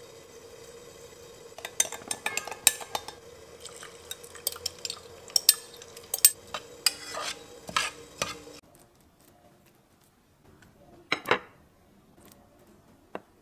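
A thin metal spoon stirring coconut milk in a glass measuring cup, a rapid irregular run of sharp clinks against the glass, carrying on while the milk is poured from the cup into a rice cooker's inner pot. It stops abruptly; about eleven seconds in comes one short scrape.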